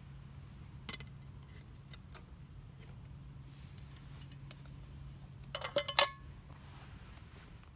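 Metal camp cookware and utensils clinking: a few light taps, then a quick run of ringing metallic clinks a little before six seconds in.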